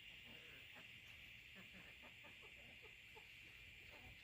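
Near silence, with a few faint, soft clucks from chickens.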